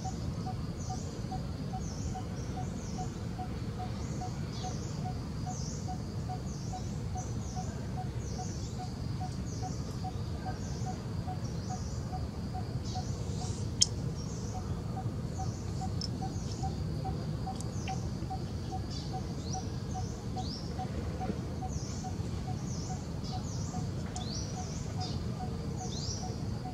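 Birds chirping over and over in short, high, falling notes, over a steady high insect-like whine, a regular low pulsing note and a low rumble. One sharp click comes about halfway through.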